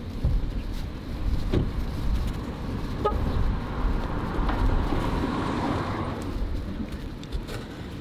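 A car passing on a nearby road, its noise swelling in the middle and fading again, over a steady low rumble, with a short high tone about three seconds in. A couple of light knife taps on a cutting board.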